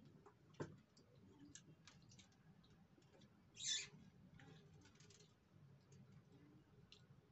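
Faint, scattered clicks and light pattering of small dry grains being pushed and picked over by hand on a plastic tabletop, with a brief hiss about three and a half seconds in.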